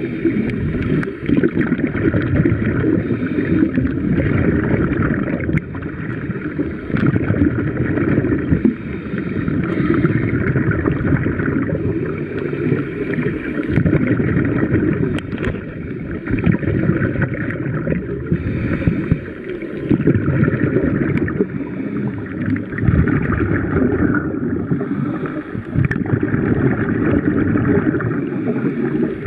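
Muffled underwater noise picked up by a camera in a waterproof housing: a dense, steady rumble of water that swells and eases every few seconds.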